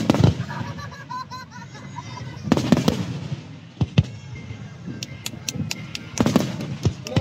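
Aerial fireworks display: about four loud booms of bursting shells, with quick crackling pops in the second half.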